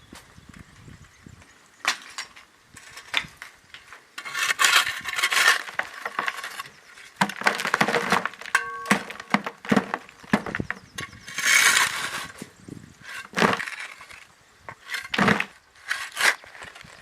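Irregular clattering, cracking and crunching impacts, like hard material breaking or being knocked about. There are several louder crashes, about 4–6 seconds in and around 8 and 11–12 seconds in, with a brief ringing clink near the middle.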